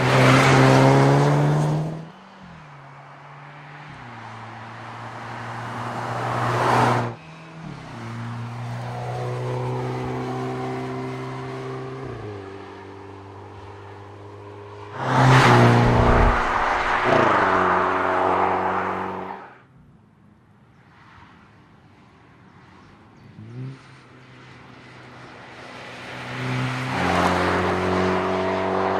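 Hyundai Kona N's 2.0-litre turbocharged four-cylinder engine and exhaust accelerating hard, the pitch climbing and then dropping back at each gear change. It gets loud in several swells: at the start, midway and near the end.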